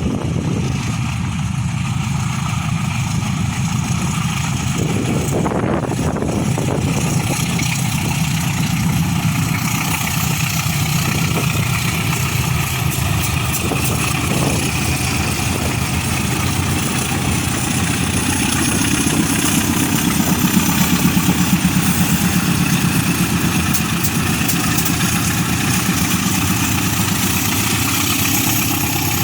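Diesel locomotive engine running steadily, swelling louder with a quick pulsing for a few seconds past the middle.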